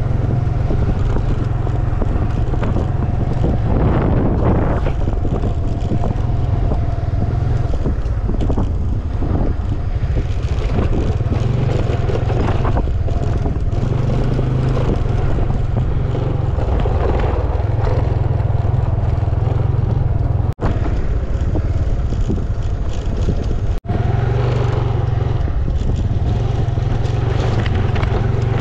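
Motor scooter running along a rough dirt track, its engine mixed with wind buffeting the microphone and knocks and rattles as it bumps over the ruts. The sound drops out for an instant twice near the end.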